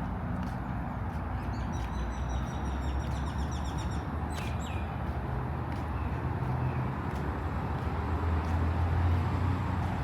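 Park ambience: birds calling in a quick high trill and a short falling note in the first half, over a steady low rumble of city traffic that swells a little near the end.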